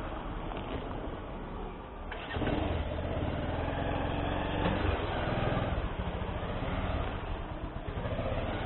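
Motorcycle engine running at low revs while the bike is ridden slowly, getting louder and fuller about two seconds in.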